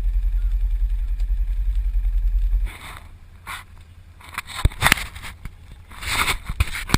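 Polaris Sportsman 500 ATV engine running with a steady, rapid low throb that cuts off suddenly a little under three seconds in. It is followed by irregular scraping and rustling with a few sharp knocks.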